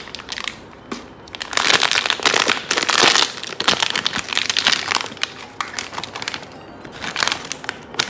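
Plastic blind-box packaging crinkling and crackling as it is handled and the collectible vinyl figure is unwrapped. It is loudest and densest for a few seconds, starting about a second and a half in, with a shorter burst of crinkling near the end.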